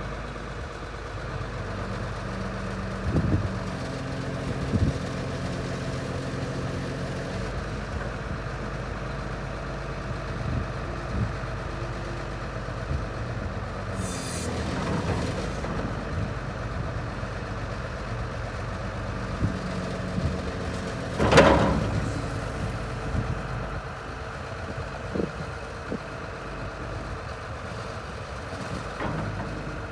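Cummins C8.3 six-cylinder diesel of a Volvo EC240LC excavator running steadily, with a few sharp metal knocks and clanks, the loudest about 21 seconds in, and a short hiss around the middle.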